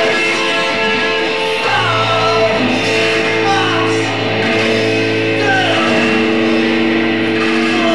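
Punk rock band playing live: electric guitars holding ringing chords over a sustained bass note, the chords changing every few seconds, with a voice sliding in pitch.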